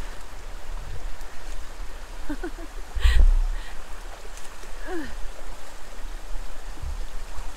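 Creek water running steadily over rocks, with a single thump about three seconds in.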